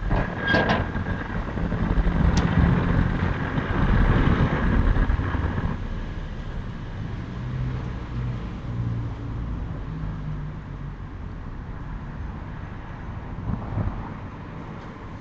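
A motor vehicle passing on a nearby road: a low engine-and-tyre rumble that swells over a few seconds and fades. A few sharp knocks come in the first second.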